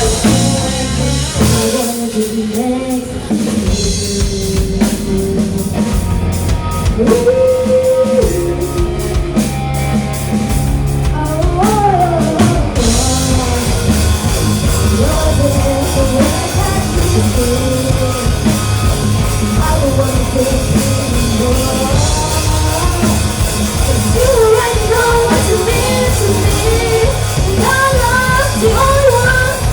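Rock band playing live with a singer: drum kit, guitar and vocals. For the first dozen seconds or so the drums keep a steady beat under a thinner arrangement, then the full band comes in under the vocal.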